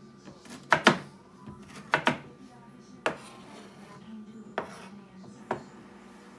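Cleaver-style knife chopping a turnip into cubes on a wooden cutting board: about seven sharp knocks of the blade hitting the board, unevenly spaced, the first four in two quick pairs.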